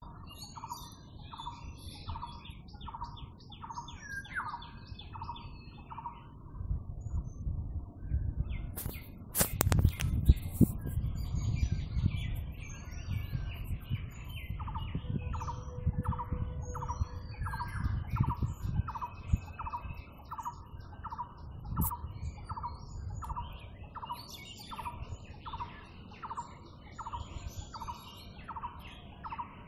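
Birds calling: one bird repeats a short note nearly twice a second, steadily throughout, while other birds chirp and twitter higher above it. A low rumble and a few sharp knocks come about nine to ten seconds in.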